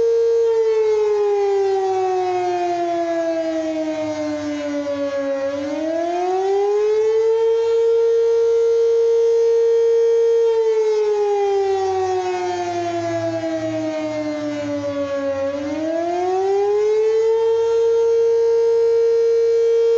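Civil defense emergency siren sounding its weekly test signal: a loud tone that holds high, slides slowly down over about five seconds, then climbs quickly back up and holds again, twice.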